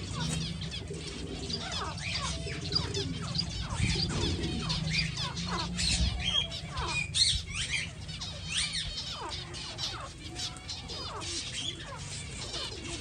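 A colony of aviary finches, zebra finches among them, chirping and calling, with many short, quick calls overlapping continuously.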